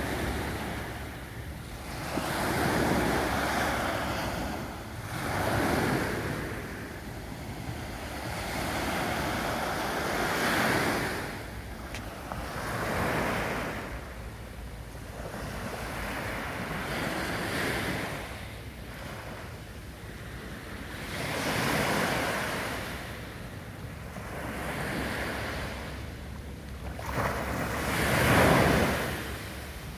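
Small waves on a calm sea breaking and washing up a sandy beach, rising and falling every few seconds, with the biggest break near the end.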